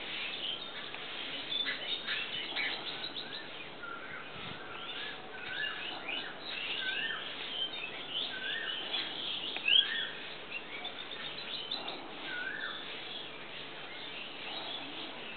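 Several birds chirping and twittering together, many short high notes overlapping, with a short rising-and-falling whistle repeated every second or so and one louder sharp chirp about ten seconds in.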